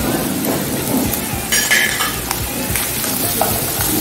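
Minced garlic sizzling in hot oil over high heat in a frying pan with sausage slices and grated carrot, with a steady frying hiss. A wooden spatula stirs the pan, giving scattered scrapes and knocks against the pan.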